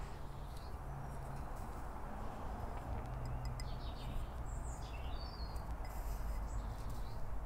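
Birds chirping and singing in short phrases, clearest about three to five seconds in, over a steady low background rumble.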